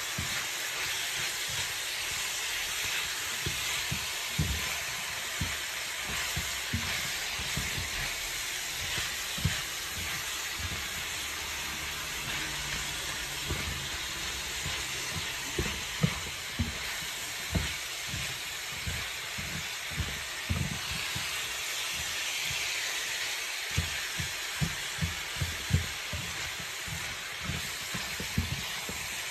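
Ground meat, bell peppers and onions sizzling in a nonstick frying pan as a wooden spatula stirs them, a steady frying hiss with frequent soft knocks of the spatula against the pan.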